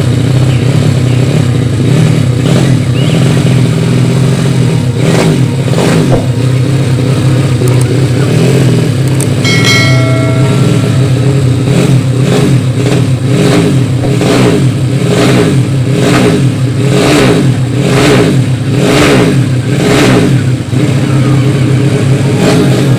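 Yamaha Vega ZR-based 200cc four-stroke engine with a swapped Mio cylinder, running. From about halfway through it is blipped up and down on the throttle about once a second.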